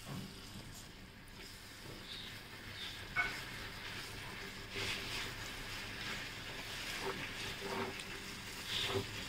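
A small metal spoon stirring and scraping chopped chicken and tomato in a miniature steel pot, with occasional clicks against the pot over a faint sizzle of the food cooking.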